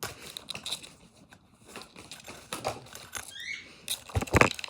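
Oracle cards being handled: a run of light clicks and rustles as the cards are slid and turned over, with a few louder taps near the end as cards are set down on a hard surface.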